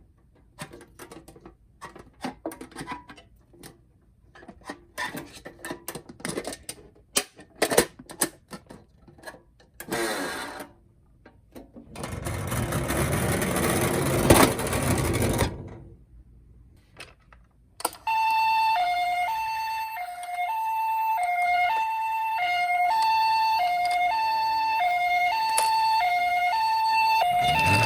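Toy cars clicking and clattering, then a few seconds of rattling noise. From about two-thirds of the way in, a toy ambulance plays its electronic two-tone hi-lo siren, the Japanese ambulance 'pee-po' pattern, switching between the two notes about twice a second.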